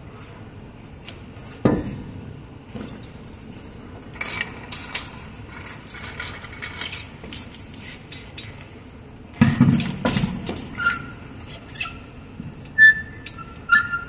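Metal clinking and rattling as a heavy bus wheel is worked into place on a wheel dolly, with a heavy thud nearly two seconds in and a louder cluster of knocks about nine and a half seconds in. Short ringing metallic notes near the end.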